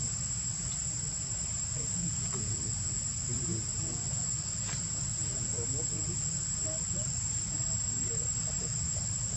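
Continuous insect chorus in tropical forest: a steady, unbroken high-pitched drone, over a low rumble.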